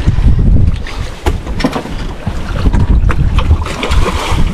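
Wind buffeting the microphone aboard a small fishing boat under way, a heavy uneven rumble with scattered light knocks.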